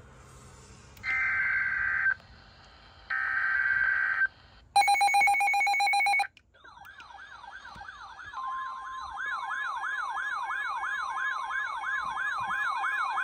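Emergency Alert System tones on weather radio. Two one-second bursts of digital header data screech, then a third buzzier burst, then a fast siren-like warbling alert tone. A steady single tone joins the warble about 8 seconds in. This is the audio header and attention signal that open a severe thunderstorm warning.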